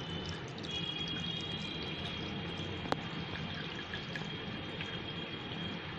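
Thickened, boiled-down full-cream milk pouring from a jug through a steel mesh strainer into a bowl: a steady splashing trickle, with a single light tick about three seconds in.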